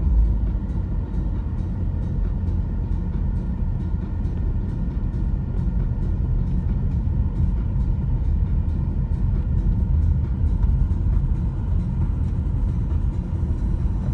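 Steady low rumble of a car driving along an unpaved gravel road, heard from inside the cabin: tyre and road noise with the engine running underneath.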